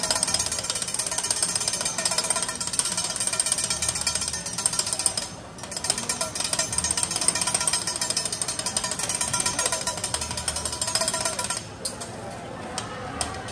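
Fast, continuous metallic clatter of steel spatulas striking a teppanyaki griddle, with a ringing metal tone. It breaks off briefly about halfway through and stops near the end.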